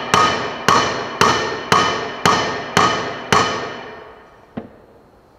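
Steel hammer striking a bolt threaded into a mower-deck spindle shaft, seven ringing metal-on-metal blows about two a second, then one light tap. Each blow drives the keyed spindle shaft down out of its stuck pulley.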